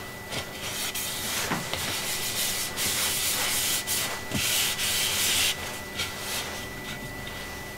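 Oil finish being rubbed by hand onto a turned cherry bowl, the applicator scrubbing against the wood in irregular strokes, strongest in the middle and quieter near the end.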